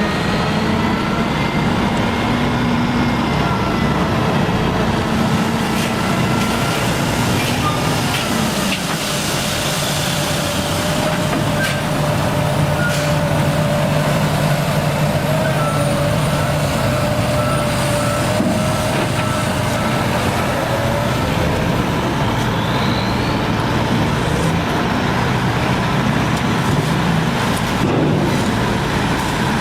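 Heavy construction machinery with a diesel engine running steadily under work, with scattered knocks and a short run of beeps about halfway through.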